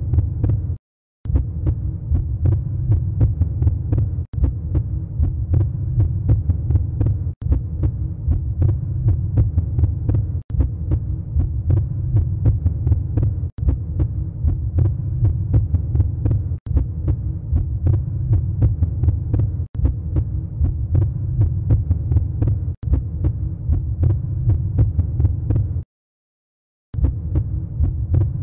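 A low throbbing hum with a rapid, heartbeat-like pulse, a sound-effect bed. It breaks off for an instant about every three seconds, like a repeating loop, and drops out for about a second near the end.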